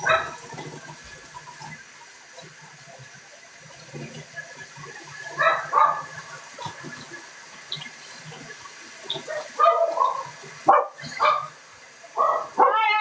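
A dog barking in short scattered bursts, coming more often and louder in the last few seconds.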